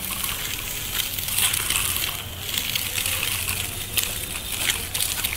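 Gritty crunching with scattered light clicks and rattles from a child's bicycle with training wheels rolling over a dusty paved yard.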